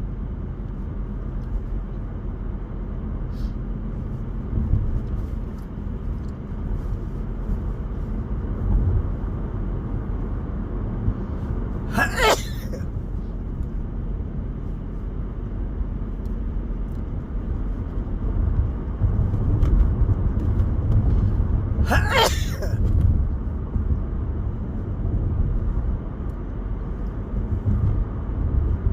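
A man sneezing twice, about ten seconds apart, each a sharp explosive burst, over the steady low rumble of a car driving, heard from inside the cabin.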